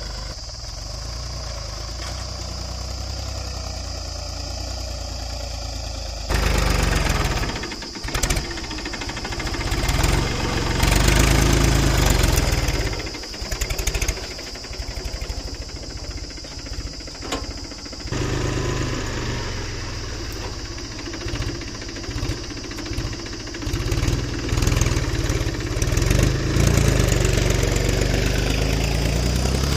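Mahindra 275 DI tractor's three-cylinder diesel engine running under load as it pulls a tine cultivator through the soil. It turns suddenly louder and closer about six seconds in, then rises and falls unevenly.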